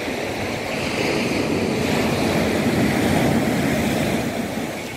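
Sea waves breaking and washing up a sandy beach, swelling to a peak about three seconds in and then easing.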